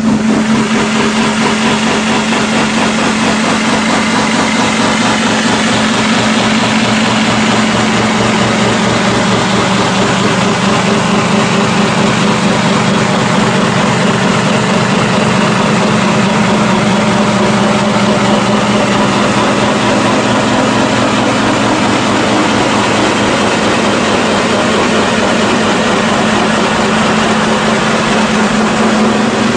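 CNC kitchen-sink side-wall polishing machine running steadily: a loud, even hiss over a constant low hum, which drops away at the end.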